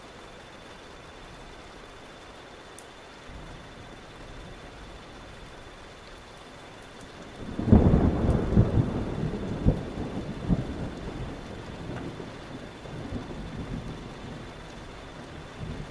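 Thunderstorm with steady rain. A low rumble builds from about three seconds in, then a loud thunderclap about halfway through crackles for a few seconds and rolls away.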